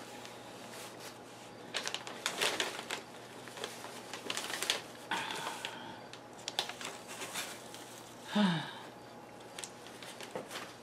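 Newspaper packing paper rustling and crinkling in short, irregular bursts as hands shift it around inside a cardboard box. About eight seconds in there is a short, falling vocal hum.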